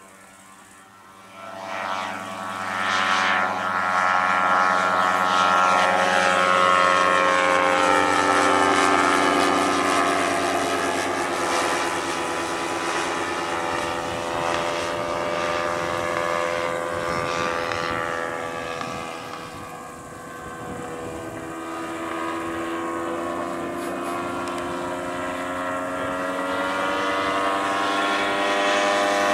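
Hirth 520 cc twin-cylinder boxer engine of a giant-scale RC Bücker Jungmeister biplane, turning a large propeller, heard in flight. It swells up loudly a second or two in, its pitch rising and falling as the plane manoeuvres, dips somewhat about two-thirds through, then builds again near the end.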